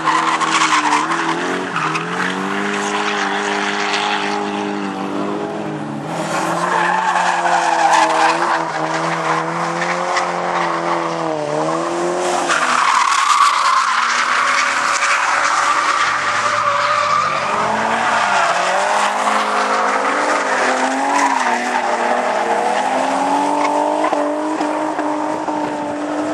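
Drift cars sliding round the track: engines revving, their pitch repeatedly rising and falling, over continuous tyre screech.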